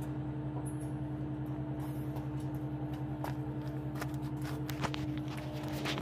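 An engine idling steadily with an even low hum, with a few sharp metallic clicks about three, five and six seconds in.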